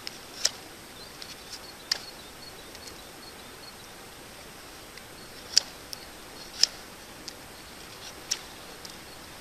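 Pocket knife blade cutting into a stick of ash wood: short, sharp cuts as shavings are carved off, five louder ones spread unevenly with fainter ones between.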